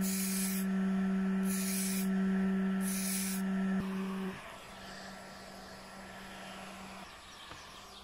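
An aerosol spray can hisses in three short bursts over the first three and a half seconds, spraying gold paint coat by coat. Under the bursts an electric heat gun hums steadily, and the hum drops sharply about four seconds in.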